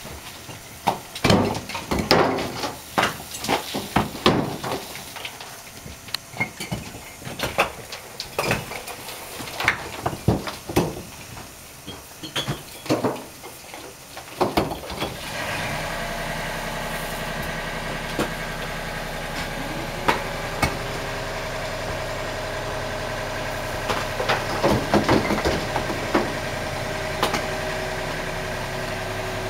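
Chimney bricks dropped down the flue, knocking and clattering in quick irregular impacts as they fall and bounce out through an opening in the wall. About halfway through an engine starts and runs steadily at idle, with a few more knocks over it.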